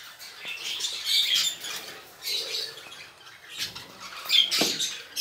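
Lovebird chicks in the nest box giving high, thin, rasping begging cheeps in uneven bursts, with a brief knock or rustle about four and a half seconds in.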